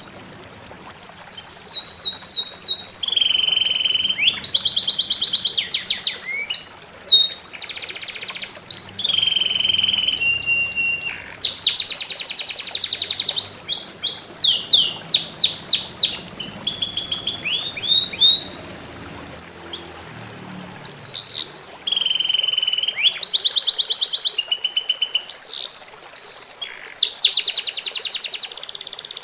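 A songbird singing loud, varied phrases: fast runs of repeated notes, trills and clear whistles, broken by short pauses.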